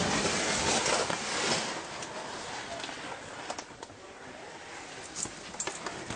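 Rustling handling noise from a handheld camera and clothing brushing rock as a person scrambles through a narrow rock crevice, loudest in the first second or so, then quieter with a few light clicks and knocks.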